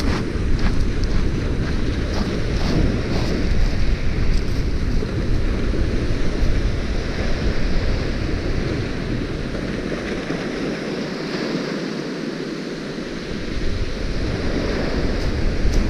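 Wind buffeting the microphone over waves breaking on the beach. A few faint clicks come in the first few seconds, and the wind eases for a couple of seconds about two-thirds through.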